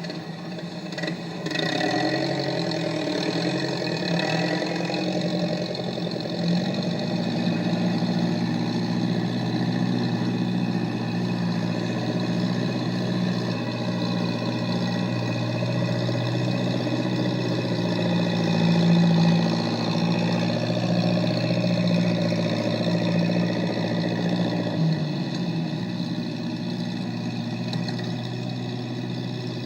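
A motor vehicle's engine running steadily, its pitch shifting a few times, in a cartoon soundtrack.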